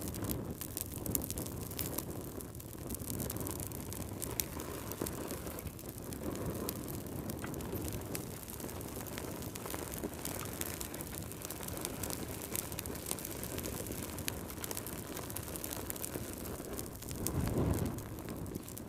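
Fire crackling in a fireplace: many small sharp snaps and pops over a low roar of flames that swells and eases every few seconds.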